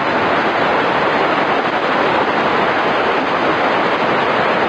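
Loud, steady static hiss takes the place of the synthesized warning voice in the middle of a sentence. This is typical of the broadcast signal dropping out.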